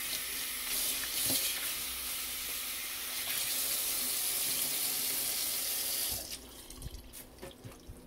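Water running from a kitchen faucet into the sink, shut off about six seconds in, followed by a few light knocks.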